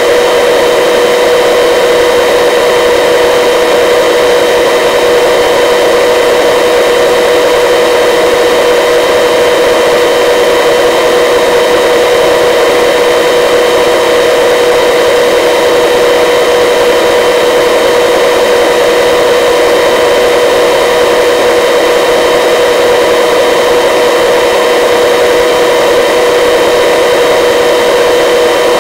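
Helicopter in flight, heard from inside the cabin: a loud, unchanging drone with a steady whine held at several fixed pitches.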